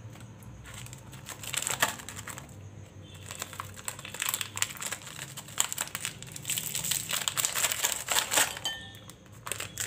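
Plastic Oreo biscuit wrappers crinkling and crackling as packets are handled and emptied. The crinkling comes in irregular bursts and is busiest in the second half.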